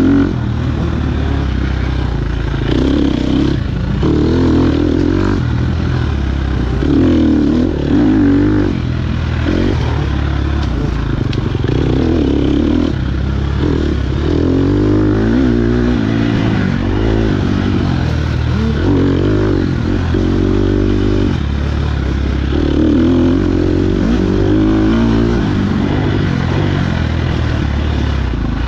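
KTM 250 XC-F single-cylinder four-stroke dirt bike engine running hard, its pitch repeatedly rising and falling every second or two as the throttle is opened and closed.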